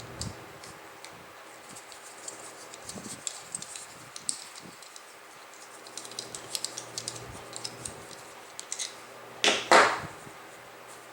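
Small metal clicks and taps from a padlock being handled and worked on with a tool, with a louder, brief clatter near the end.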